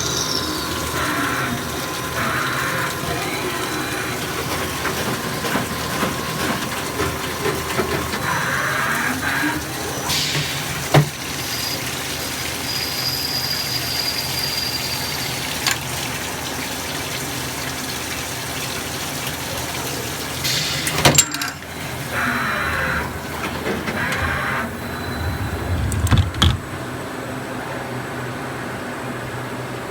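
Miyano CNC lathe running a turning cycle, with coolant splashing over the work and a steady machine hum. A few sharp knocks break in, about a third of the way in, two-thirds of the way in and near the end.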